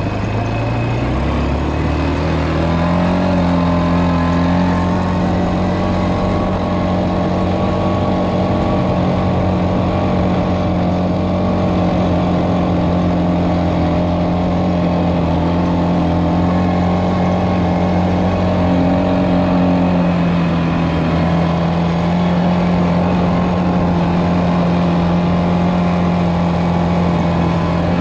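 ATV engine pulling away, rising in pitch over the first two or three seconds, then running at a steady riding speed with a slight easing of pitch about twenty seconds in.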